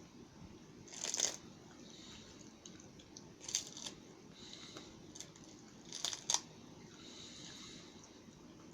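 Crisp roasted seaweed snack sheets crackling and crunching as they are handled and eaten, in three short bursts about a second, three and a half seconds and six seconds in, with faint chewing between them.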